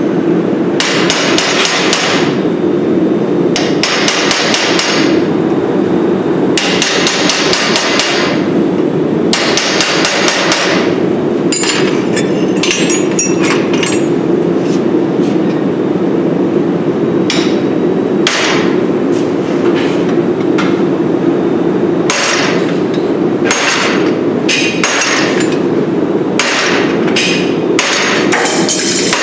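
Hammer striking punches and chisels held against red-hot steel on an anvil, sinking the eyes and nostrils of a forged dragon head. The blows come in runs of rapid strikes with short pauses between, over a steady low roar.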